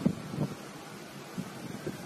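Strong storm wind of a nearby tornado blowing across the microphone, a steady rush with a few short, dull buffets.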